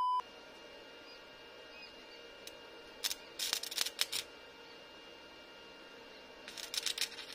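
Stick arc welding: two short bursts of crackling and spitting as the electrode strikes an arc on a small steel strap to tack it, the first about three seconds in and the second near the end. A brief electronic test-tone beep sounds at the very start.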